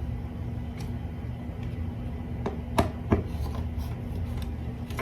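Screwdriver loosening the Phillips-head screws of an old smoke detector's ceiling mounting base: a few scattered sharp clicks and light scraping over a steady low hum.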